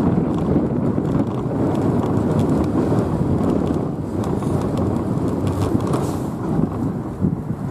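Heritage tram running slowly along its rails, heard from on board the upper deck: a steady rumble of wheels and running gear.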